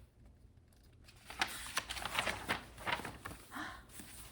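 Faint, irregular clicks and rustles that begin about a second in.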